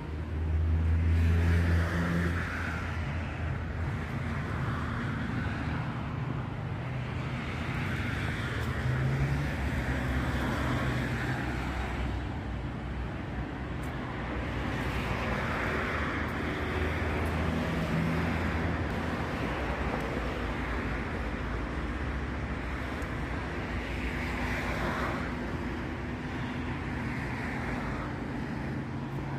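Steady street traffic: cars passing one after another on the adjacent road, each swelling and fading over a few seconds, over a continuous low engine hum.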